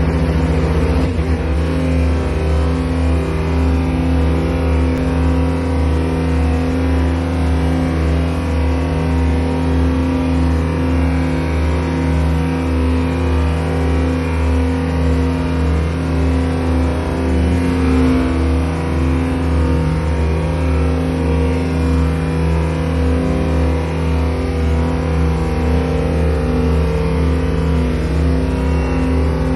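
Heavy diesel engine of asphalt paving equipment running at a steady speed, a low even drone that holds throughout.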